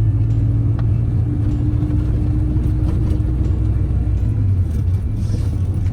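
1996 Acura Integra's four-cylinder engine running through a straight-pipe exhaust, a steady loud drone at an even pace while driving. The drone's pitch shifts slightly about four seconds in.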